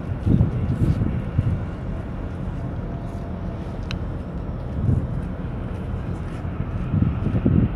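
Wind buffeting the microphone: a low, uneven rumble that surges in gusts about a second in, near five seconds and again near the end.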